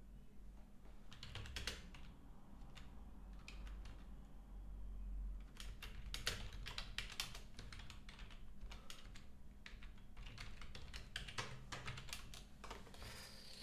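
Typing on a computer keyboard: several bursts of keystrokes, busiest in the middle.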